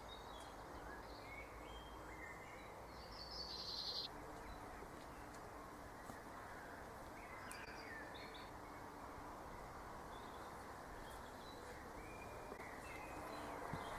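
Woodland ambience: a steady faint background hiss with scattered bird calls, the loudest a call lasting about a second, some three seconds in.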